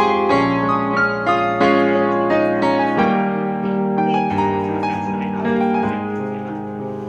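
Background music played on piano, a melody of stepping notes over sustained chords.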